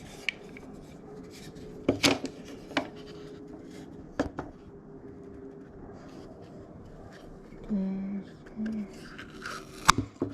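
Hands working hose fittings and tools: several sharp clicks and knocks with light scraping, and two short grunts near the end.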